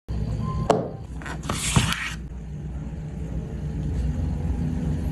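Phone box and packaging being handled: a sharp tap about a second in, then a couple of knocks and a brief scraping rustle, over a steady low rumble.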